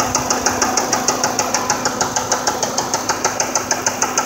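Car engine idling with a fast, even, metallic knock: the sign of a bottom end ruined by running without oil, which the mechanic takes for damaged rods and block.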